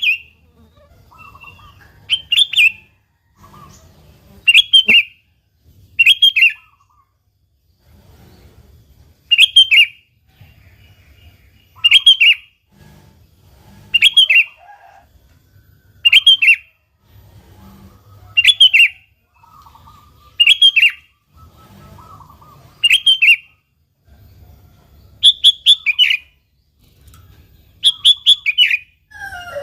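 Sooty-headed bulbul (kutilang) singing its short phrase over and over, about once every two seconds.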